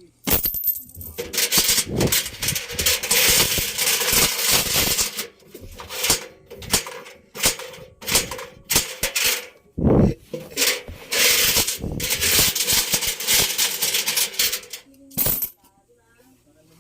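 Coins and loose metal objects clattering and banging inside a turning Electrolux washing machine drum, over a steady hum. The clatter stops about a second before the end.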